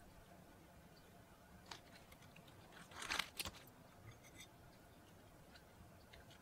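Quiet food-preparation handling sounds: a faint click, then a short crisp rustling about three seconds in as fresh lettuce leaves are laid onto a tortilla.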